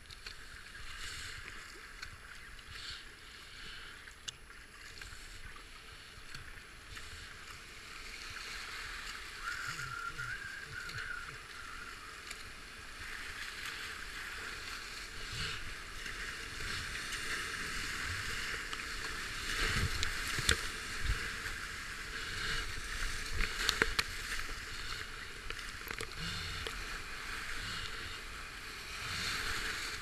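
A kayak running white-water rapids, heard from a helmet camera: a steady rush of foaming water that grows louder from about halfway through as the boat drops into bigger waves, with several sharp splashes of waves and paddle strokes about two-thirds of the way in.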